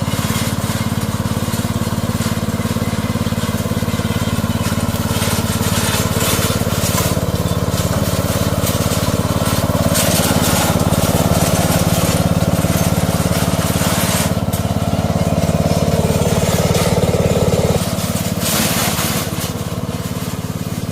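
A powered weeding machine running steadily while cutting weeds, with a crackle of vegetation being cut. About three-quarters of the way through, a higher part of the sound drops out and the machine runs on a little quieter.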